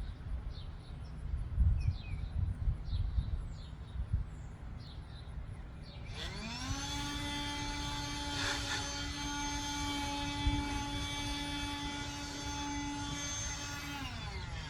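Whelen WPS-2809 electronic outdoor warning siren sounding: about six seconds in, its tone rises quickly, holds steady for about eight seconds, then falls away near the end. Before it, birds chirp over a gusty low rumble of wind on the microphone.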